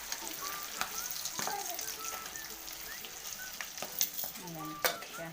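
Chicken feet coated in egg and flour deep-frying in hot oil, a steady sizzle broken by a few sharp clicks.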